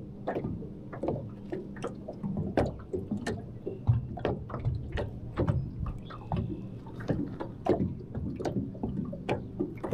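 Small waves lapping and slapping against an aluminum boat hull, an irregular run of quick knocks and splashes, over a faint steady low hum.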